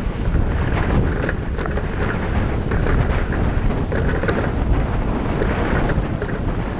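Ride noise inside a Ford shuttle bus in motion: a steady low rumble of engine and road, with a rush of wind and frequent small rattling clicks.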